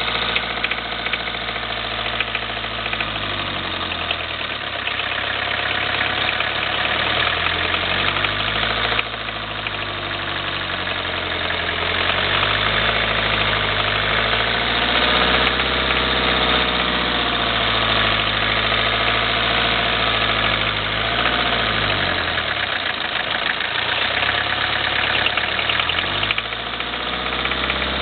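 Toyota Corolla 1.8 D four-cylinder diesel engine running at raised revs that rise and fall several times, with a combustion knock. The knock comes from an injector whose nozzle is sticking open, letting unatomised fuel into the cylinder and delaying ignition.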